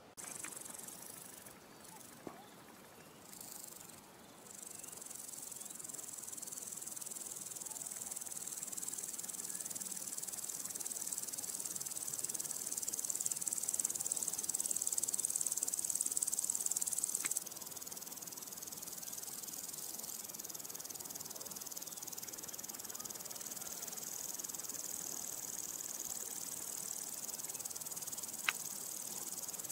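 High-pitched, steady chirring of insects in grass, with short breaks in the first few seconds and a sudden drop in level about seventeen seconds in. A single sharp click comes near the end.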